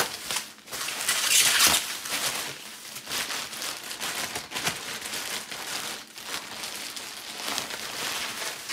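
Plastic packaging (bubble wrap and a clear plastic bag) crinkling and rustling in irregular bursts as a roll of photo paper is unwrapped by hand, loudest about one to two seconds in.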